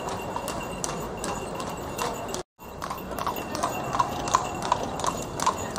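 Hooves of a carriage horse clip-clopping on stone paving at a walk, about three strikes a second, over a murmur of voices. The sound cuts out briefly about two and a half seconds in.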